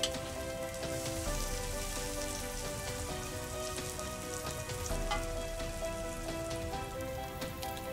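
Chopped shallots, garlic and lemongrass sizzling steadily in hot oil in a wok as they are stirred with a metal spatula. Soft background music with held notes plays underneath.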